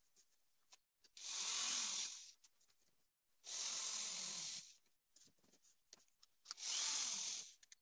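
Corded electric drill drilling holes through plywood into foam board, in three short bursts of about a second each with pauses between.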